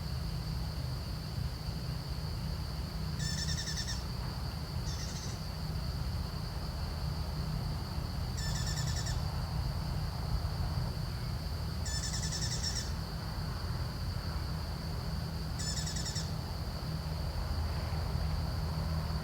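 A bird giving a short trilled call five times, about every three and a half seconds, over a steady high-pitched insect drone and a low rumble.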